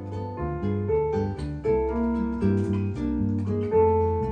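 Instrumental background music: plucked, guitar-like notes and piano over a held bass line.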